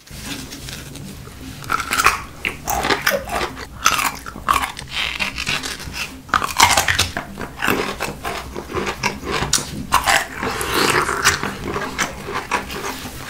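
Close-miked eating: repeated bites, crunching and wet, smacking chewing of spicy mara foods such as bamboo shoots, in quick irregular succession.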